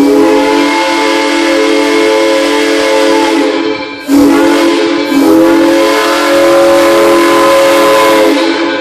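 Arcade & Attica No. 18 steam locomotive's whistle blowing loudly with several tones at once: a long blast, a short one, then another long blast. It sounds as the engine crosses Main Street, a pattern typical of a grade-crossing warning.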